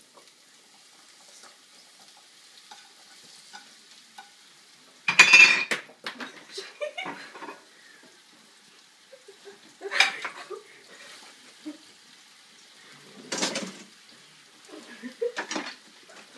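Cut potatoes and onions frying in a pan with a faint steady sizzle, broken by several loud bursts of a utensil stirring, scraping and knocking against the pan and plate.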